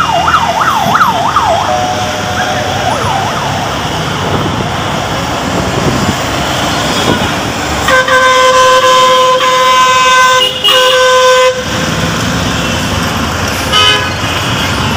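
Busy road traffic with a fast up-and-down siren wail in the first couple of seconds. A long, loud vehicle horn blast, broken once, starts about eight seconds in, and a short horn toot comes near the end.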